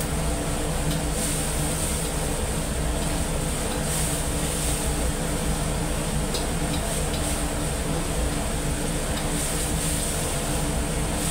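Steady roar of a commercial gas wok burner and kitchen blower with a constant hum, over sizzling in the wok. A few light clinks of a metal ladle against the wok.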